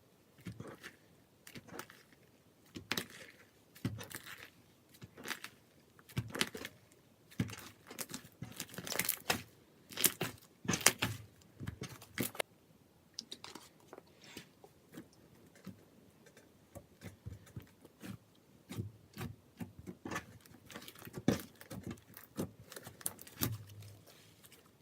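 Clear slime made from water glue being squished, stretched and pressed by hand, giving irregular sticky pops and crackles, busiest in the middle.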